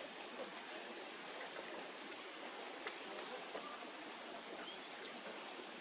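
Steady high-pitched drone of insects, with a couple of faint clicks and a few short chirps near the end.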